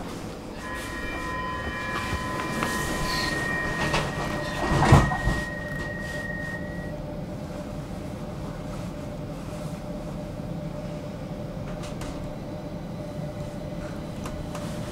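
Stockholm metro train heard from inside the carriage: steady running noise with several steady high tones during the first few seconds. A loud knock comes about five seconds in, followed by a steady hum.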